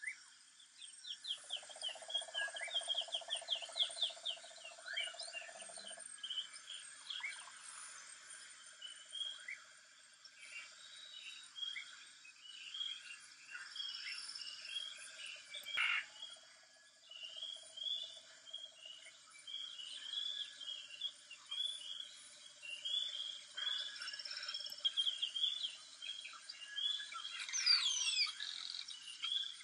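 Wild birds chirping and trilling over a steady drone of insects, many short calls repeated throughout, with a steady hum in the first few seconds.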